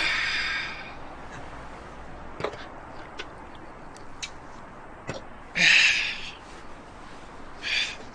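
An aluminium drink can cracked open with a sharp pop and a short fizzing hiss, then a few small clicks as the can is handled and drunk from. A long breathy sigh comes about six seconds in and a shorter one near the end.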